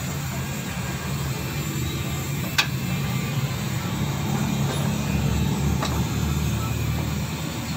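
Mitsubishi Mirage engine idling steadily, with two sharp clicks about three seconds apart.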